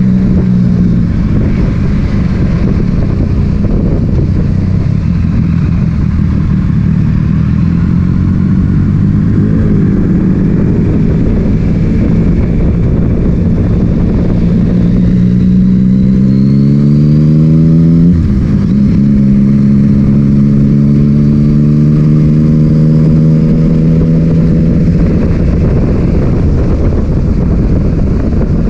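Yamaha MT-09's three-cylinder engine through an Akrapovic titanium exhaust under way, revs climbing for a few seconds past the middle, then dropping sharply at an upshift and running steady again. Wind buffets the microphone throughout.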